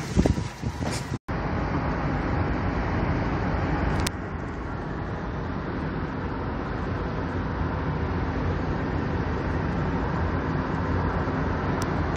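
Steady road noise of a car driving along a road, tyres and engine heard from inside the moving car. It follows a brief dropout about a second in.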